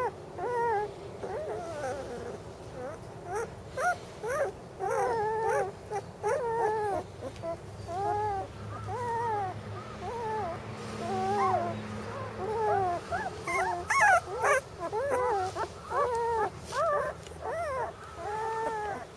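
Young flat-coated retriever puppies crying: short high cries that rise and fall, several a second almost without a break, at times two pups overlapping.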